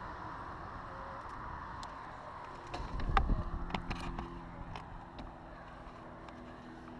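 Wind and tyre noise from a bicycle riding along, then a burst of clicks and a heavy knock about three seconds in as the bike-mounted camera is jolted and turned, followed by a few lighter rattles.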